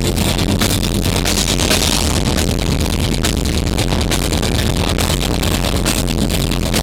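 Symphonic metal band playing live at high volume, heavy drums and distorted guitars overloading the recording into a dense, distorted wall of sound.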